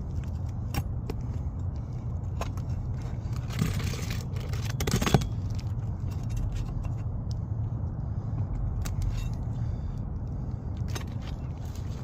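Asphalt roof shingles being pried and worked loose by hand: scattered clicks and crackles with two short scrapes about four and five seconds in, the second the loudest, over a steady low rumble.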